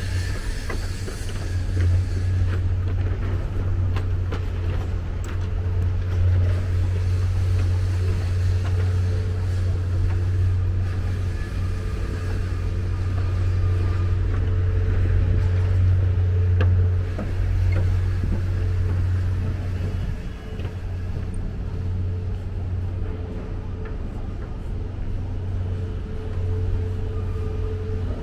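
Steady low rumble of road traffic with a faint hum above it, picked up outdoors by a small camera's built-in microphone.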